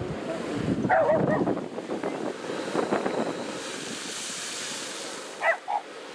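Surf washing on a lava-rock shore, with a sea blowhole spouting about four seconds in: a rising, rushing hiss of spray. Short, loud, wavering pitched cries come about a second in, and two brief ones come near the end.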